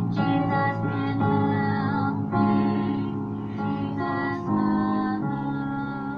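Slow music: a woman singing over sustained chords that change about once a second.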